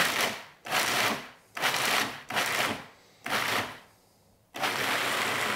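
A food processor pulses about five times in short bursts, its blade chopping slivered almonds and superfine sugar, then runs steadily from about four and a half seconds in, grinding them to a fine powder.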